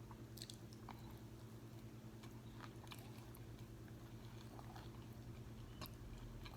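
A person chewing crispy fried food up close: faint, scattered crunches and mouth clicks over a steady low hum.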